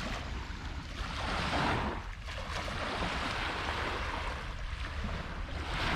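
Wind on the microphone and water washing at the edge of a bay, a steady noise with a low rumble that swells twice, about a second and a half in and near the end.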